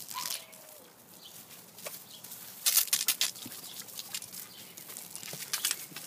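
Garden hose spray splashing while a dog bites at the water stream, with a cluster of short, loud splashing bursts about halfway through and a few more near the end.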